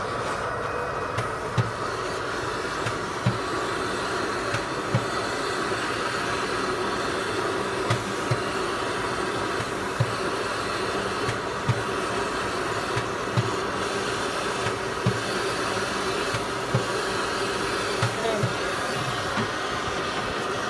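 Steady whooshing hum of a powder-bed 3D printer's vacuum suction running during depowdering, with a dull low thump about every second and a half.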